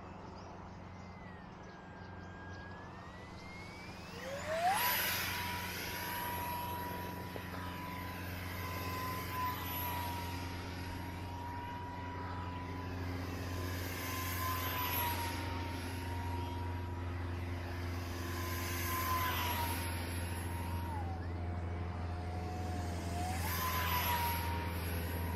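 Small RC plane's electric motor whining in flight: the pitch climbs sharply as the throttle comes up about four seconds in, holds steady, dips for a couple of seconds near the end and climbs again. The sound swells each time the plane passes, over a steady low hum.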